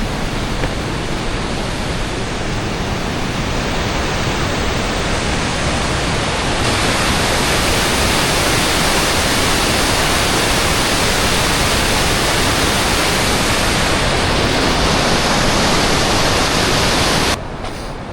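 Waterfall rushing at low flow: a dense, steady noise of falling water. It gets louder about seven seconds in and drops away abruptly near the end.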